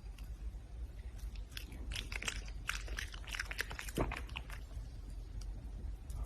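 Red panda chewing and biting its food: a run of quick crunches in the middle, with one sharper snap about four seconds in, over a low steady rumble.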